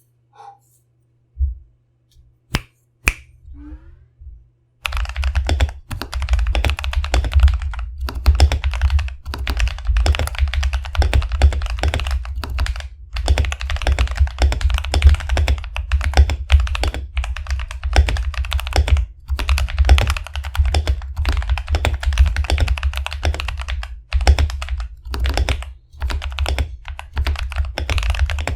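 Typing on a Royal Kludge RK61 mechanical keyboard with lubed Akko Ocean Blue switches, PBT keycaps and foam dampening: a few isolated keystrokes, then from about five seconds in a fast, continuous stream of keystrokes.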